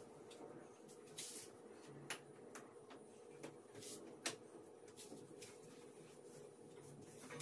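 Cloth wiping the knob panel and oven door of a gas stove: faint, irregular rubbing strokes.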